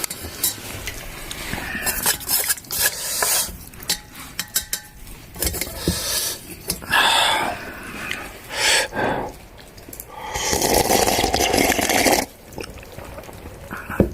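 Clinks, knocks and scrapes of dishes and utensils during a meal, broken by a few rushing noises of a second or two, the longest near the end.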